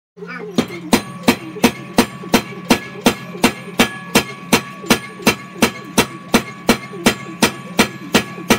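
Forging hammer blows on steel, very evenly spaced at about three a second, each strike with a short metallic ring, over a steady low hum.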